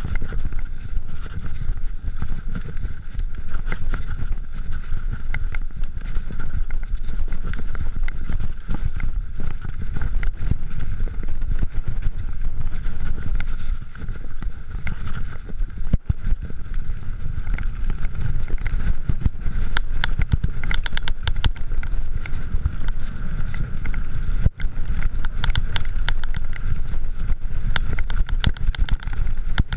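Mountain bike riding fast down a dirt singletrack, heard from a camera on the rider. Wind buffets the microphone with a heavy low rumble, over tyre noise on dirt and frequent clicks and rattles from the bike, along with a steady high hum.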